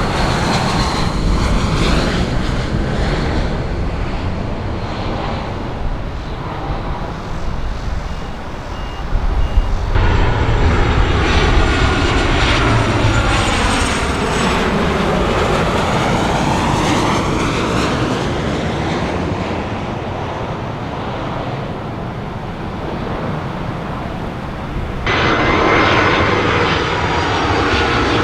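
Jet airliner engines running loud as aircraft pass close by, with sweeping rises and falls in pitch as each plane goes past. The sound changes abruptly twice, about ten seconds in and again near the end, as one aircraft's sound gives way to another's.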